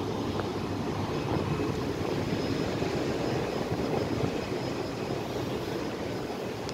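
Steady rushing drone of a cruise ship's funnel and deck machinery, with a faint high whine held on a single note.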